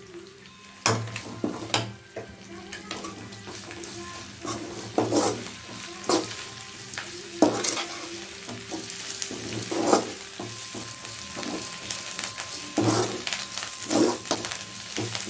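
Moringa leaves and onions sizzling as they sauté in oil in a metal kadai, stirred with a slotted metal spoon that scrapes and knocks against the pan at irregular moments.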